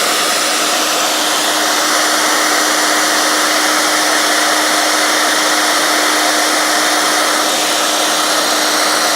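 Handheld hair dryer running steadily: a loud rush of blown air with a steady hum in it that sets in just after the start.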